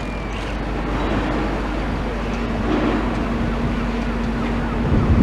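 Outdoor traffic and vehicle engine noise, with a steady engine hum coming in about two seconds in and low rumbling near the end.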